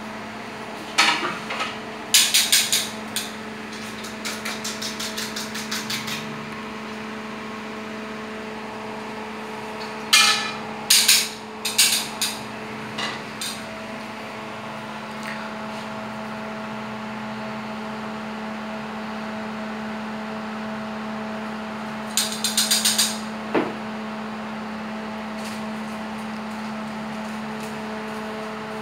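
Kitchen clatter: metal tongs and utensils knocking against pans and dishes in three short bursts of rapid clicks and knocks, over a steady low hum.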